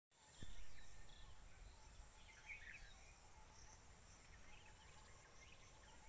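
Near silence: faint outdoor ambience, with a soft low rumble on the microphone in the first second, a few faint bird chirps, and a steady faint high insect hiss.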